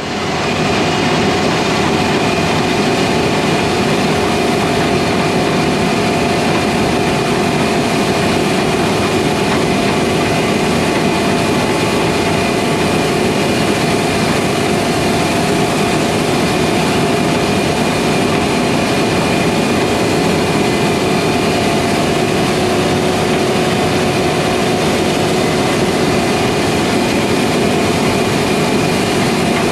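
Heavy harvest machinery running steadily: a constant engine and machine drone with a few steady tones through it, unchanging throughout.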